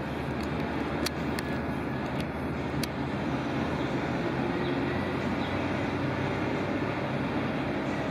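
Steady idling jet engine noise from airliners on the ramp, with a low steady hum underneath. A few faint clicks come in the first three seconds.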